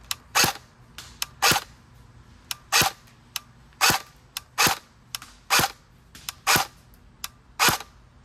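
Airsoft SCAR-L electric gun, suppressor off, firing single shots with a loud crack: about eight shots roughly a second apart, with fainter clicks between them.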